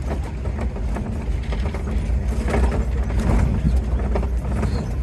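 Safari ride vehicle running with a steady low rumble, heard from aboard, with scattered short rattles and knocks.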